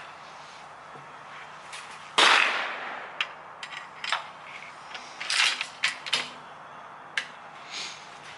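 A single 6.5 Creedmoor rifle shot about two seconds in, sharp and loud with a short fading tail, followed by several small clicks and knocks of handling the rifle.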